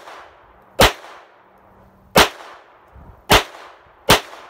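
Smith & Wesson Victory SW22 .22 LR semi-automatic pistol firing Aguila Super Extra copper-plated hollow points: four sharp shots about a second apart, each dying away quickly.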